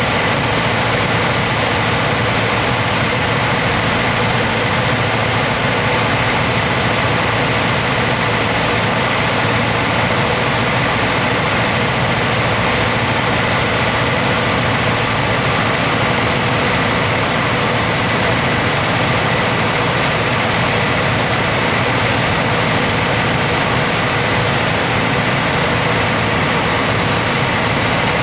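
Engine and propeller of an Aeronca 7AC Champion light aircraft in cruise-descent, heard from inside the cabin as a steady, unchanging drone with a thin whine above it.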